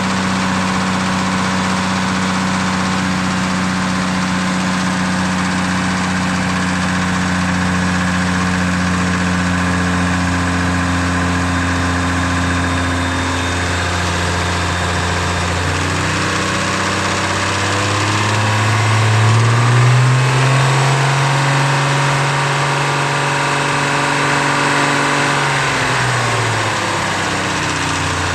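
Turbocharged 2JZ-GE inline-six in a Lexus IS300 idling, then raised to a steady higher speed and held for several seconds, dropping back to idle near the end. The owner hears a rattle in it and wonders whether it is rod knock.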